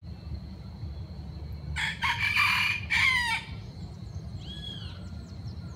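Rooster crowing once, about two seconds in, a call of about a second and a half that ends on a falling note. Faint bird calls follow near the end, over a steady low rumble.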